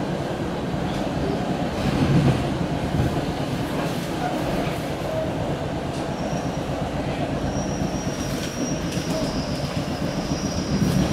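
A commuter rail coach running along the track, heard from inside the passenger car: a steady rumble and rush of wheels on rail with a few faint knocks. About halfway through a thin high squeal comes in and holds.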